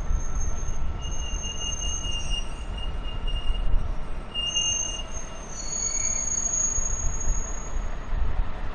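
Yellow Infrabel overhead-line maintenance rail vehicle rolling slowly by, its wheels squealing on the rails in several thin, high tones that come and go over a low rumble.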